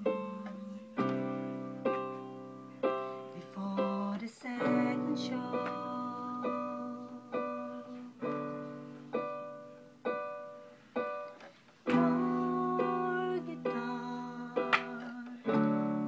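Electronic keyboard played on its own, without singing: slow chords under a melody line, each struck note ringing and fading, with a new chord about every second.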